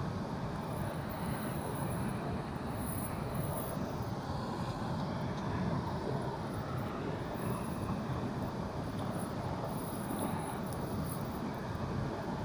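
Steady rushing roar of water pouring through a weir's sluice gate, even and unbroken.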